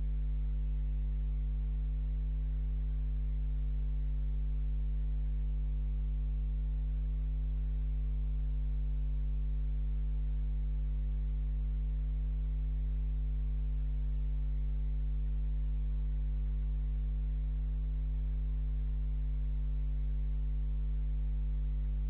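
Steady low electrical hum with a faint hiss above it, the recording's own noise with no sound from the fox.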